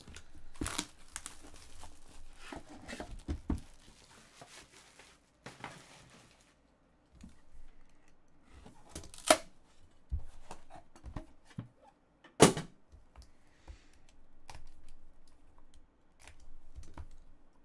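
Plastic shrink wrap being torn and crumpled off a trading-card box, a crackling stretch of about six seconds. Quieter handling of the cardboard box follows, with two sharp knocks, and near the end the light scrape of a box-cutter blade slitting a box seal.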